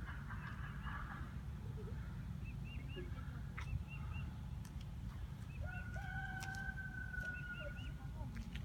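A rooster crows once, a long held call of close to three seconds starting a little past the middle, while small birds chirp over and over and a low rumble runs underneath.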